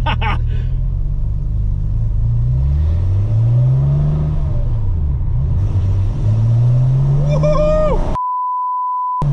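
Car engine pulling hard, revs climbing, dropping and climbing again through gear changes. Near the end a voice cries out and is cut off by a steady one-second censor bleep.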